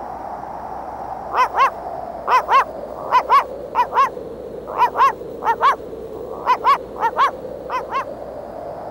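Cartoon sound effect of squeaky yelps: about nine quick pairs of short, high calls, each rising and falling in pitch, over a steady hiss.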